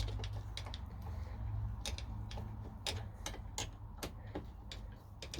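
Screwdriver loosening a screw in a bench vise's aluminium jaw: light metallic clicks and ticks at irregular intervals, over a low steady hum.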